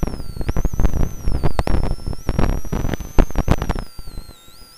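Loud, irregular crackling and popping from a rally car's crew intercom, the crackle and interference of a faulty intercom line, stopping suddenly about four seconds in.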